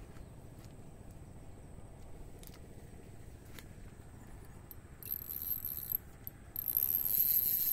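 Fishing reel buzzing in two spells in the second half, the longer one near the end, as line is worked against a hooked fish that feels heavy.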